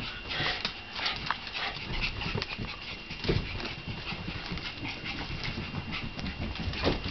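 Shiba Inu's claws clicking and tapping on a hardwood floor as it moves about, with a couple of louder thumps about three seconds in and near the end.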